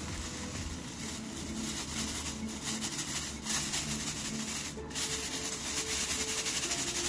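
Clear plastic bag crinkling as ground sodium acetate powder is shaken out of it into a glass beaker: a continuous hissy rustle with a few short breaks.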